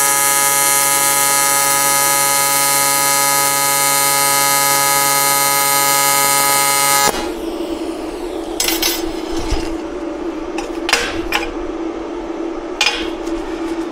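Hitbox HBT250 AC TIG welding arc on aluminium, a loud steady buzz that cuts off suddenly about seven seconds in when the arc is broken. A quieter steady hum remains, with a few light clinks.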